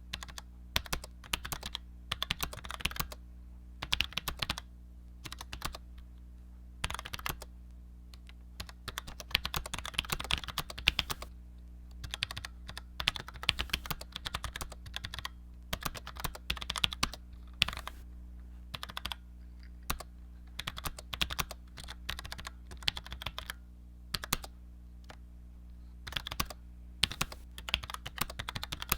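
Typing on a Cherry G84-4100 low-profile keyboard with Cherry ML switches: runs of quick key clicks broken by short pauses, over a steady low hum.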